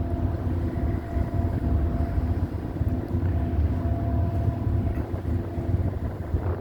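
Car ferry's marine diesel engines running under way: a steady low rumble with a few steady humming tones over it.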